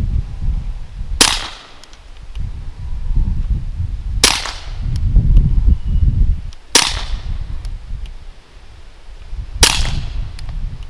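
Four suppressed .22 pistol shots from a Walther P22 fitted with a PTP Tactical Scout Model 19D suppressor, firing CCI standard velocity ammunition, spaced about two and a half to three seconds apart. Each is a sharp crack with a short tail. A low rumble runs between the shots.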